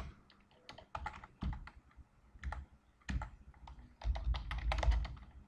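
Computer keyboard typing: scattered single keystrokes, then a quick run of presses about four seconds in, as a word is backspaced and retyped.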